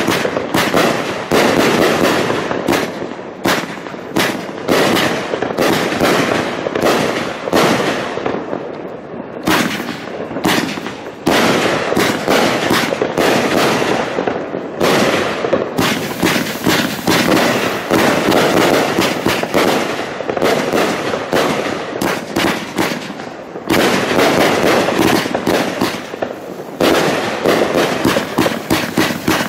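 Luypaers Asiatic Cheetah 100-shot fireworks cake firing shot after shot: a dense, overlapping string of launches and aerial bursts with no real pause.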